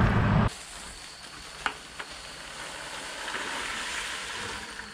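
A loud low rumble cuts off sharply about half a second in. After that, autumn olive berries pour from a bucket into a plastic colander as a steady rustling rush, with two small clicks about two seconds in.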